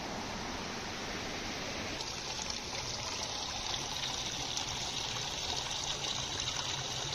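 Forest mountain stream flowing over rocks: a steady rush of water.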